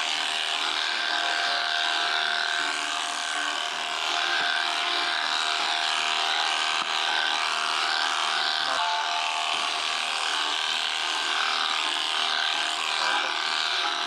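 Electric sheep-shearing handpiece running steadily, its cutter clipping through thick, matted fleece.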